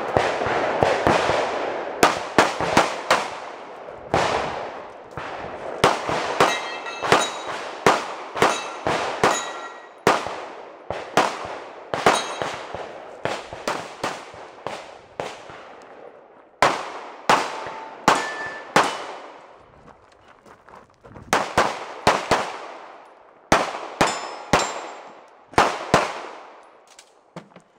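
Pistol fire on a 3-gun stage, about forty shots in quick pairs and strings, with steel targets ringing with a clang after many of the hits. The shooting pauses for about two seconds a little past the middle.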